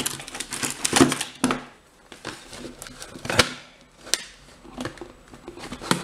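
Hand tools clicking and knocking together as they are rummaged through for a screwdriver: a quick run of small clicks and rattles at first, then a few separate sharp knocks.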